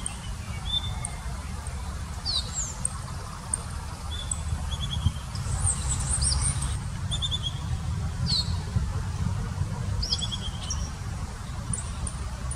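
Piratic flycatcher calling: repeated short, sharp whistled notes and quick little trills every second or so, over a steady low rumble.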